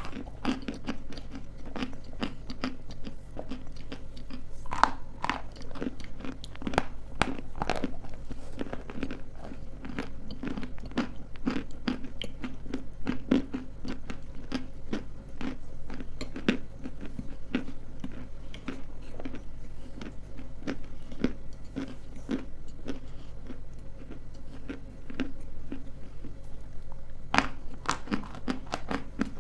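Close-up biting and chewing of hard, crunchy pieces of edible clay: a dense run of sharp, irregular crunches, with a few louder bites about five seconds in, at seven and a half seconds, and near the end.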